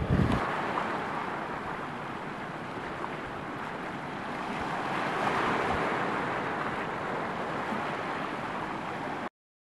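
Sea water washing over lava rock at the shoreline: a steady hiss of surf that swells about halfway through and cuts off abruptly near the end. A short rumble of wind on the microphone opens it.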